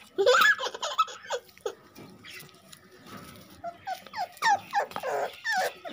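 Young Labrador retriever puppies whimpering and yelping: a run of short, high-pitched cries in the first second and a half, a lull, then another run from about three and a half seconds in.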